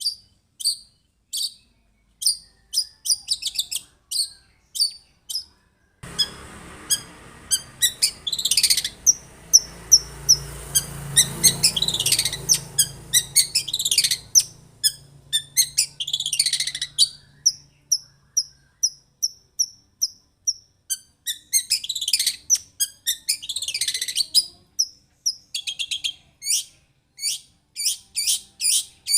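Long-tailed shrike (cendet) singing: rapid runs of short, sharp, high chirps, broken by harsh rasping calls in the middle and again near the end.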